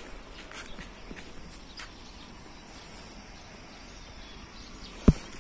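Steady high drone of insects, with faint rustling footsteps on leaf-strewn ground and one sharp low thump near the end.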